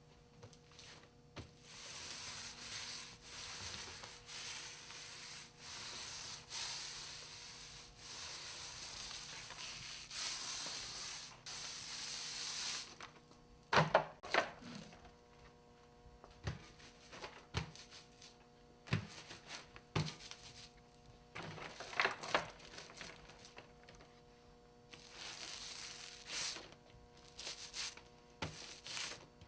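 Thin sheets of wood veneer being handled: rustling, rubbing and crinkling for about the first ten seconds, then a series of sharp knocks and clicks, two of them louder, about halfway and about three quarters of the way through.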